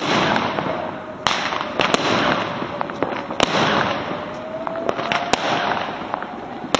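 Fireworks going off: aerial shells bursting in sharp bangs about six times, over a continuous crackle of other fireworks.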